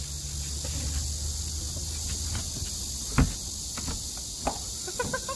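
Steady high-pitched drone of insects. About three seconds in comes one sharp knock on the boat's hull, followed by a few lighter knocks as someone moves about on the small fishing boat.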